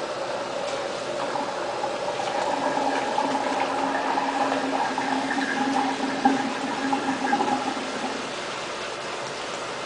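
Bathroom sink faucet running, its water splashing into the basin and over a small wet dog being rinsed. A steady hum sits over the water from about a second in until near the end.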